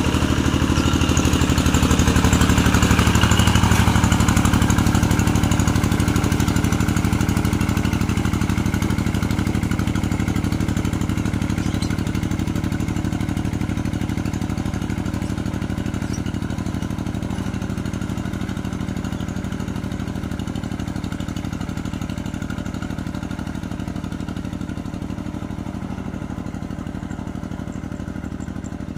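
A tractor engine running steadily while pulling a plough through a rice paddy. It is loudest about three seconds in, then slowly fades as the tractor moves away.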